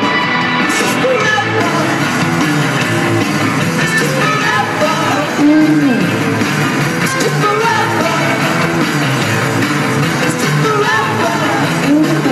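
Live rock band playing, with a singer's voice over the full band, heard loud from among the audience.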